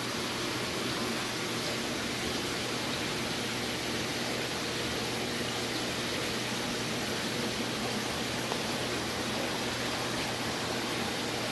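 Steady rushing of aquarium water circulation with a faint pump hum underneath, unchanging throughout.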